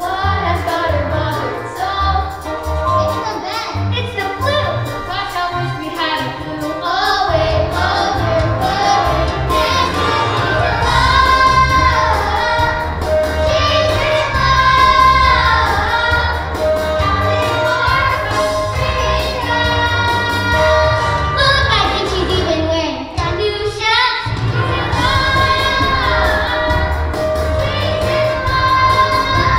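A group of young children singing a musical-theatre medley over instrumental accompaniment, with a brief break about 23 seconds in.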